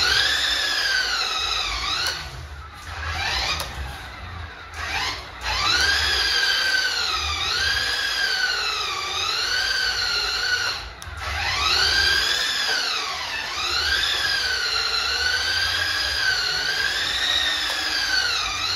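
Nikko Rhino Aero RC buggy's battery-powered electric motor whining, its pitch rising and falling over and over as the throttle is worked, with a few brief pauses. A low rumble runs underneath.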